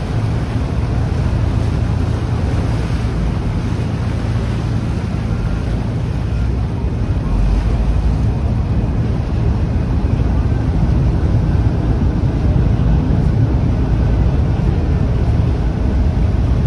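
Steady wind noise on the microphone over a deep low rumble and the wash of water, growing a little louder about halfway through.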